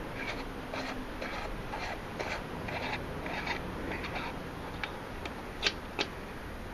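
The threaded compass cap on the back of a Vixen Polarie star tracker being unscrewed by hand: a run of faint scraping sounds as the fingers turn it, then a few sharp clicks near the end, the loudest about five and a half seconds in.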